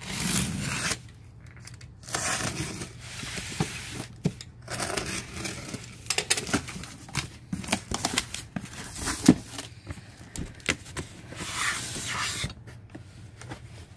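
Safety box cutter slitting packing tape on a cardboard shipping box, then the flaps pulled open and the product boxes inside handled: an irregular run of tearing, scraping and crackling noises with sharp clicks.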